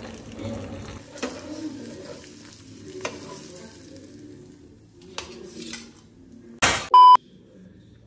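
Cooking sounds: a flour mixture stirred and tipped into a non-stick pan on a gas stove, with faint sizzling and a few sharp clicks of utensils. Near the end comes a short burst of noise, then a brief, loud, high beep.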